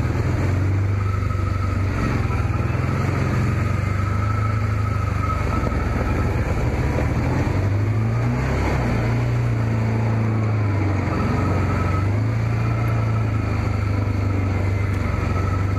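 Can-Am Commander side-by-side's V-twin engine running at low trail speed, its pitch rising and falling with the throttle. A thin higher whine rides over it, coming and going.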